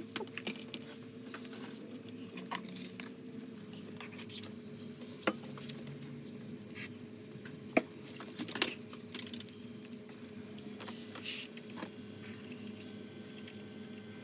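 Small scattered clicks and taps of tools and phone parts being handled during an iPhone back-glass repair, with three sharper clicks partway through, over a steady low hum.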